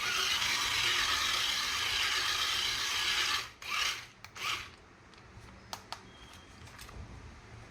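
A steady, loud rasping, grating mechanical noise for about three and a half seconds, then two short bursts of the same and a few light clicks as it falls quieter.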